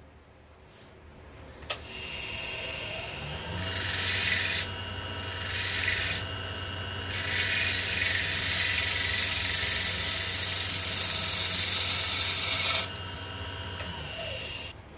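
Wood lathe motor spinning up, then a turning tool cutting into a spinning tree-branch log with a hiss of shavings: two short cuts, then one long steady cut of about six seconds. The lathe winds down near the end.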